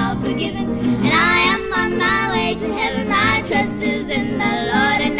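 Young girls singing a country-style gospel song over instrumental backing, the sung melody running on without a break.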